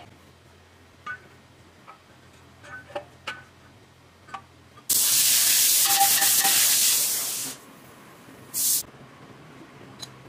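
A pressurised spray jet hisses loudly onto a wheel hub for about two and a half seconds, then gives a second short burst. Before it there are a few light clicks of tools on metal.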